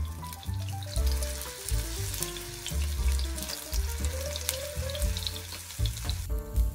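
Cauliflower fritters frying in oil in a pan: a sizzle full of small crackling spatters, louder from about a second in and dropping away near the end, over background music.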